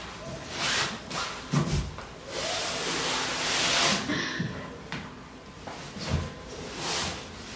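Rubbing and rustling of hands and knees working over a fabric-covered bed base, in uneven stretches, with two dull thumps.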